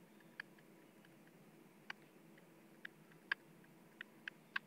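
Stylus tip tapping and clicking on a tablet screen while handwriting, about eight faint, irregular taps over low room hiss.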